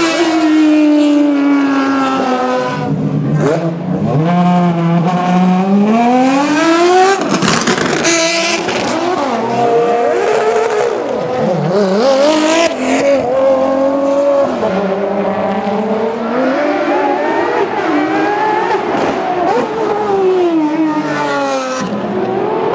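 Ferrari FXX-K and 599XX V12 race cars driven flat out. The engine note falls as a car passes, then climbs in repeated rising sweeps as it accelerates up through the gears. Two short rushes of noise come about a third of the way in and again about halfway.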